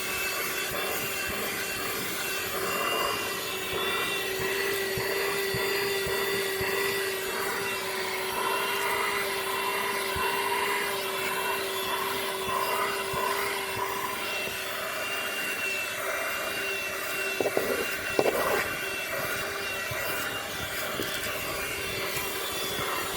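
Audew handheld car vacuum cleaner running with a steady motor whine over a rushing hiss, with a few brief louder rattles about three-quarters of the way through.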